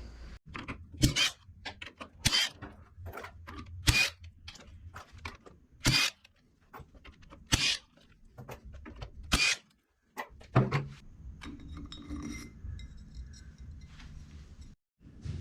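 Tools and metal engine parts knocking and clicking as a two-stroke motorcycle engine's bottom end is taken apart: about six sharp knocks spaced a second or two apart, then fainter light clicks.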